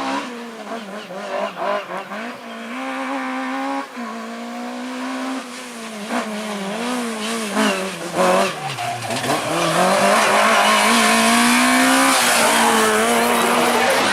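Rally car engine working hard on a stage, its revs rising and falling through gear changes, with tyre squeal. About eight seconds in the revs drop low and climb again, and from about ten seconds in it grows louder and steadier at full throttle.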